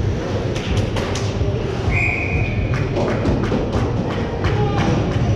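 A short steady whistle blast about two seconds in, amid repeated sharp knocks and thuds from play during a game.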